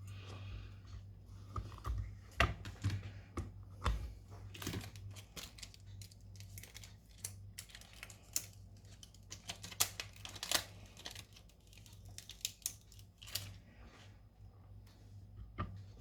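Irregular small clicks, taps and scrapes of hand tools and fingers working on a smartphone during a front-glass replacement, over a steady low hum.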